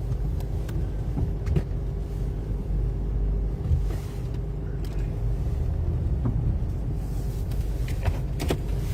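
Car engine running, heard from inside the cabin as a steady low rumble with a faint hum, with a few light clicks.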